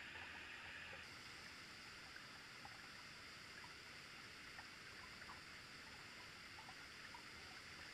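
Faint steady rush of a waterfall and fast creek water, with scattered faint ticks.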